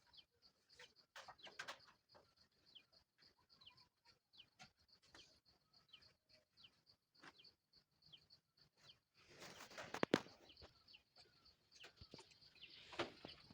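Faint chirping of birds throughout, over a quiet background. About nine seconds in there is a clatter ending in a sharp knock, and another clatter near the end, as the drill's armature and parts are fitted back into the housing.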